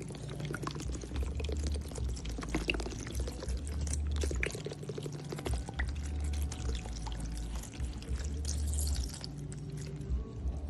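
Evaporated milk being poured in a steady stream, splashing and trickling into the egg and sour cream mixture.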